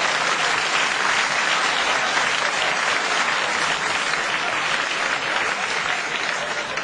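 Studio audience applauding steadily, tapering off a little near the end.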